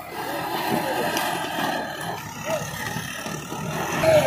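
Diesel tractor engine working under load as it pulls a fully loaded trolley over rough ground, its pitch briefly rising and falling a few times and growing louder near the end.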